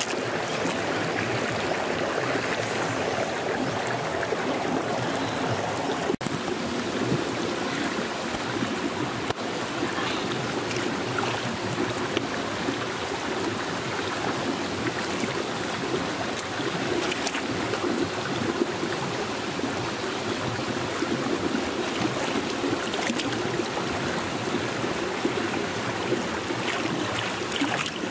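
Shallow rocky stream running steadily, with small splashes now and then from someone wading and working her hands through the water.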